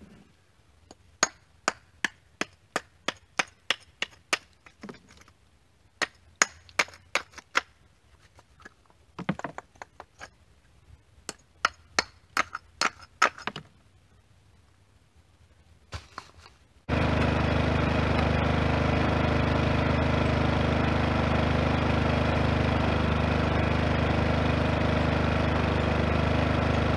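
Runs of sharp knocks and clinks, several a second with short pauses, as old bricks are struck and handled in a wheelbarrow. After about seventeen seconds it cuts abruptly to a loud, steady drone of a small engine running.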